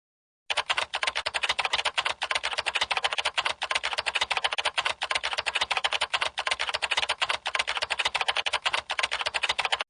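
Typing sound effect: a fast, steady run of keystroke clicks that starts about half a second in and stops suddenly at the end.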